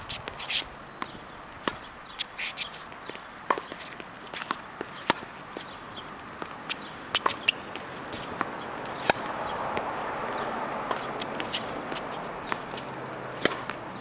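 Tennis rally on an outdoor hard court: irregular sharp pops of rackets striking the ball and the ball bouncing, some loud close by and others faint from the far end, with footsteps on the court. A soft hiss swells and fades in the middle.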